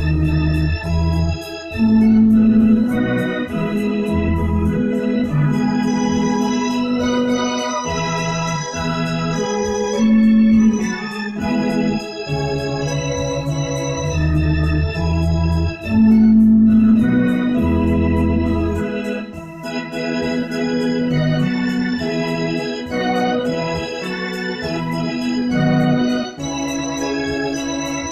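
Electronic keyboard played with an organ voice: held chords over a moving bass line, the chords changing every second or so.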